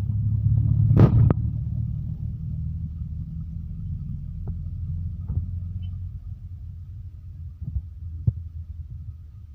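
Low, steady rumble of a moving vehicle heard from inside as it drives along, with a few short knocks and rattles, the loudest about a second in. The rumble grows quieter toward the end.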